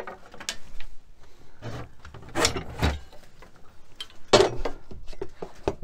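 Knocks and scraping as a square is set down and shifted on a high-density polyethylene sheet on a workbench to mark a line. A longer scrape comes around two seconds in, and the loudest knock comes about four and a half seconds in.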